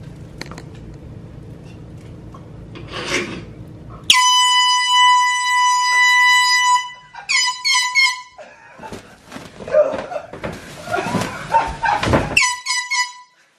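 Handheld canned air horn blasting: one long blast of nearly three seconds, then three short blasts. After a stretch of rustling commotion, a final few short blasts come near the end.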